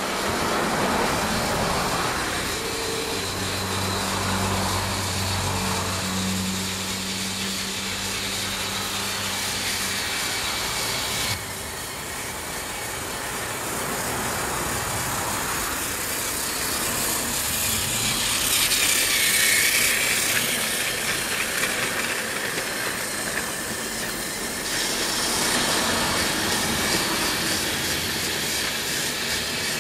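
Battery-powered Tomy Trackmaster toy engine running on plastic track: a steady whirring, rattling run from its small motor and wheels, which changes abruptly about eleven seconds in and again near the end.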